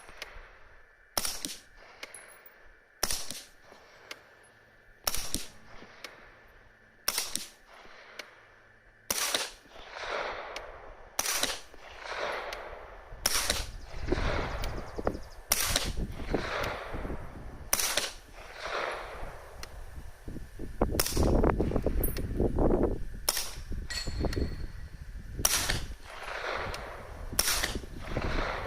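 Suppressed 9mm AR-9 carbine firing single shots at a slow, steady pace, about one every two seconds, each a sharp report. From about halfway a low rumbling noise runs under the shots.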